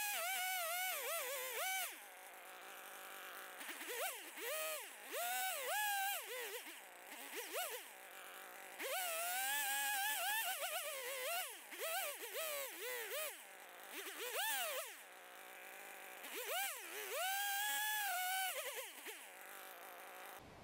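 Stihl two-stroke chainsaw cutting into a log-house corner timber, held upside down. Its engine revs up and drops back over and over as the throttle is worked, with a couple of longer stretches at high revs near the middle and near the end.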